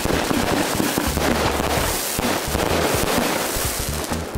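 Firework battery (cake) firing in a rapid, continuous volley of crackling bursts and bangs, one shot running into the next.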